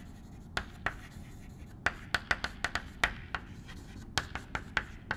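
Chalk writing on a chalkboard: a quick, irregular run of taps and short scrapes as the symbols are written.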